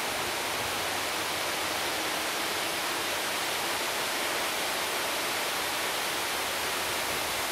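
Steady, even hiss with no distinct sounds in it, strongest in the upper range.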